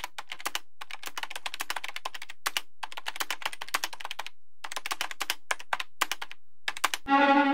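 Typing on a laptop keyboard: runs of rapid key clicks broken by short pauses, cut off near the end.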